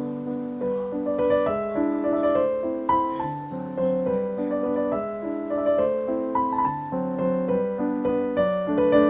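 Background piano music, a gentle melody of single notes over changing chords.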